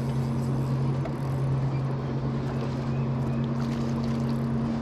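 Boat motor running with a steady low hum, over wind and water noise.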